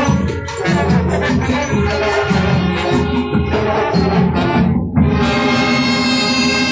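Festival band music with brass and a steady percussion beat. About five seconds in it breaks off abruptly into different music of long held notes.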